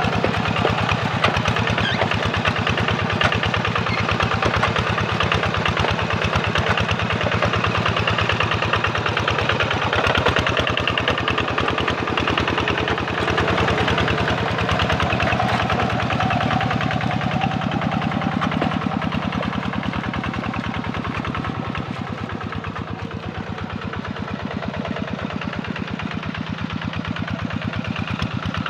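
Kubota RD85 single-cylinder diesel engine of a two-wheel walking tractor running steadily under load while ploughing a flooded rice paddy, with a fast, even beat of firing strokes. It grows somewhat fainter about two-thirds of the way through as the tractor moves off.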